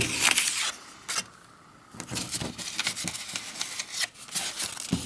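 Paper rustling and crackling as printed picture cards are handled and swapped in front of the camera. The rustling comes in two spells with a short lull between them.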